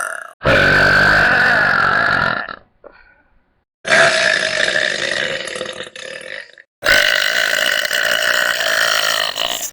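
Three long belches by young women, one after another, each lasting about two to three seconds and starting and stopping abruptly.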